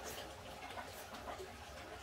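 A spoon scraping and lightly clinking in a pot while rice, torn lettuce and stir-fried eggplant are mixed together.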